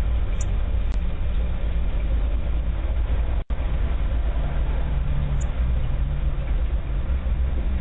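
Steady low rumbling noise heard through a doorbell camera's microphone, broken once by a short dropout about three and a half seconds in.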